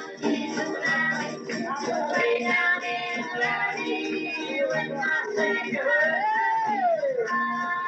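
Gospel group singing with instrumental accompaniment; a lead voice slides up and back down near the end.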